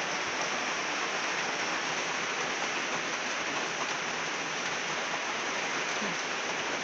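Rain falling steadily, an even hiss of drops on wet ground and on plastic water containers set out to catch it.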